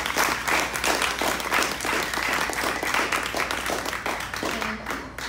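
Audience applauding with many hands clapping, thinning out near the end.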